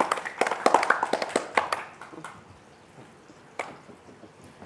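A quick irregular run of sharp taps or clicks, several a second, for about the first two seconds, then quieter with one more sharp tap near the end.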